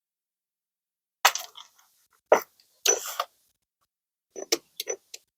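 A string of sharp clicks and knocks from hard tool parts being handled, about eight over four seconds, starting a little over a second in.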